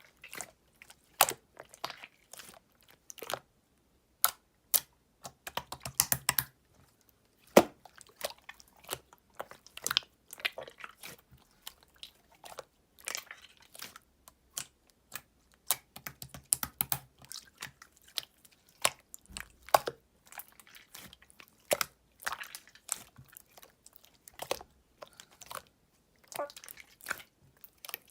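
Clear slime being squished, pressed and folded by hand, giving irregular sharp wet clicks and pops, with a couple of denser crackling runs.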